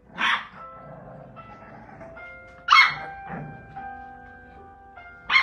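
English bulldog puppies barking: three short, sharp barks about two and a half seconds apart, the middle one loudest, over background music with held notes.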